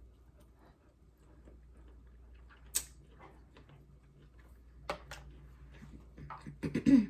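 Quiet mouth-close eating sounds: soft chewing with a few sharp clicks spaced a couple of seconds apart, and a louder flurry of short mouth sounds near the end.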